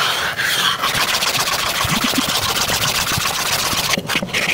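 A handheld grill-cleaning block scrubbed hard back and forth across a steel flat-top griddle, giving a continuous rasping scrape with a brief break about four seconds in: the griddle is being cleaned before cooking.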